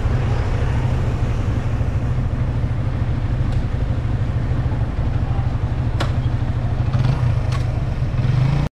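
Steady low drone of a vehicle engine idling, over street traffic noise, with a couple of faint clicks near the end.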